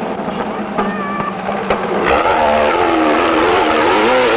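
Off-road racing buggy's engine revving hard as it passes close by, its pitch rising and falling with the throttle and getting louder about halfway through.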